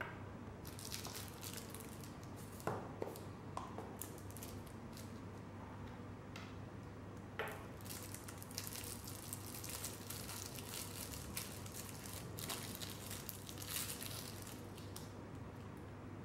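Plastic wrapping crinkling in bursts as it is handled and pulled off a metal rebuildable tank atomizer, with a few light clicks in the first half, over a low steady hum.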